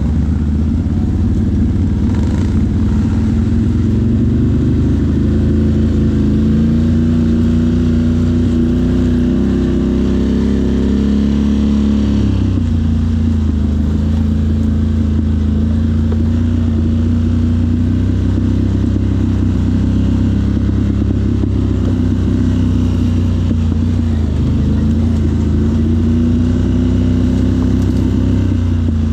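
ATV engine running while being ridden, its pitch rising and falling with the throttle, with a sharp drop in revs about twelve seconds in and a brief dip near the end.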